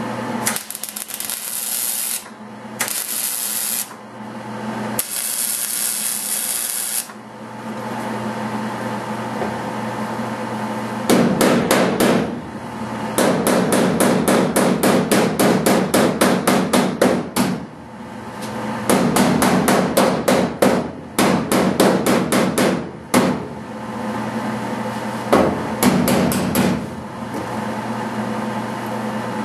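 A hammer beating a steel filler rod down into a car door's seam, in fast runs of sharp metal-on-metal blows at about four a second through most of the second half. Before that come three short bursts of welding hiss as the rod is tacked in place.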